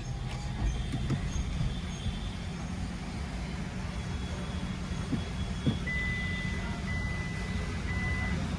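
Car engine running at idle, heard from inside the cabin as a steady low hum, with a few faint knocks. A thin, steady high-pitched tone comes in about six seconds in.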